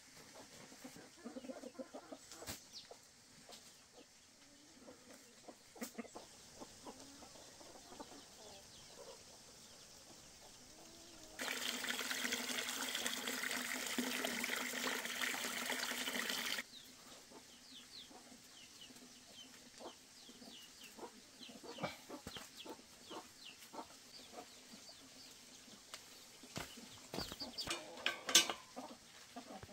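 Chickens clucking now and then. About eleven seconds in, a loud, steady noise starts abruptly and cuts off about five seconds later.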